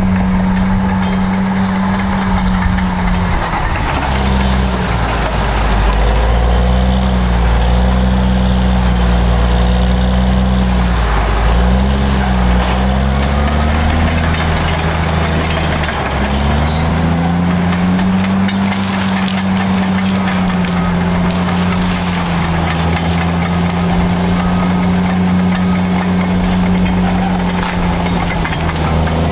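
Caterpillar bulldozer diesel engines working hard while dragging an anchor chain through scrub. The engine note sags and recovers several times in the first half, as the dozers lug down under load, then holds steady.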